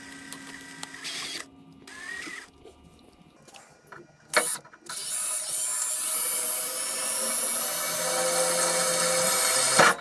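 Ridgid cordless drill boring into the laser cabinet's sheet metal: after a brief whirr and a sharp click, the motor runs loud and steady for about five seconds under load, then stops just before the end.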